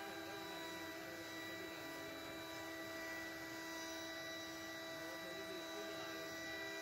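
CNC wood router spindle running with a steady whine of several fixed tones while its bit routes a groove pattern into a wooden board.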